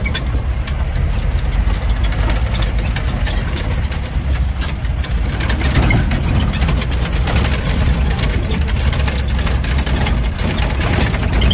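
Off-road jeep's engine running steadily on a rough track, a strong low rumble with many short knocks and rattles throughout.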